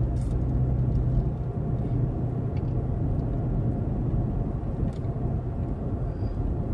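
Steady low rumble of a car on the move, heard from inside the cabin, with a couple of faint ticks.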